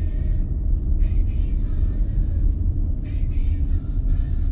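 Car driving slowly on a road, heard from inside the cabin: a steady low rumble of engine and tyre noise.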